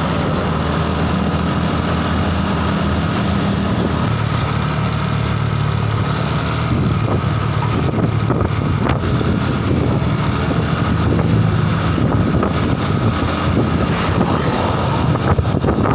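A vehicle's engine running steadily under a wide rush of road noise while on the move. The engine note drops slightly about four seconds in, and the sound grows a little louder from about seven seconds.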